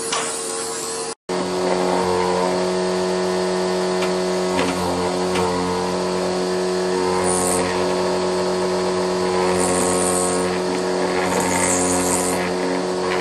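Motor-driven woodworking machine running steadily with a spinning cutter head, a constant pitched hum, with bursts of high hiss as the wooden pole is pressed against the cutter and shavings fly off. The sound drops out for an instant about a second in.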